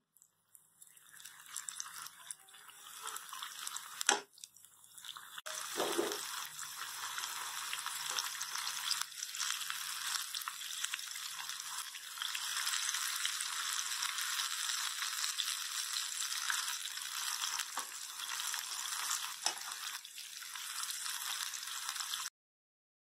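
Besan-battered fish pieces sizzling and crackling as they fry in oil heated over a medium flame, the sizzle getting louder after the first few seconds, with a few light clicks of the tongs. The sound cuts off suddenly near the end.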